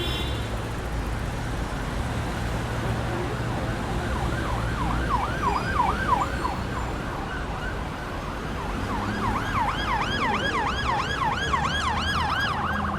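Emergency vehicle siren in a fast yelp, sweeping up and down about three times a second, sounding in two stretches from about four seconds in and again from about nine seconds in, over a steady low rumble of traffic.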